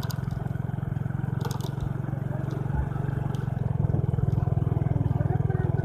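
A small engine running steadily with a rapid low pulse, with a few short clicks and rattles over it.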